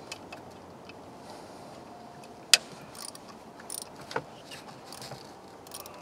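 Hand tools on the engine's 10 mm bolts as they are taken out: a few sharp clicks and clinks over a steady background hiss. The loudest click comes about two and a half seconds in and another about four seconds in.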